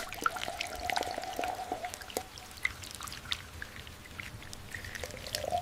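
Liquid pouring and dripping, with many small ticks and splashes.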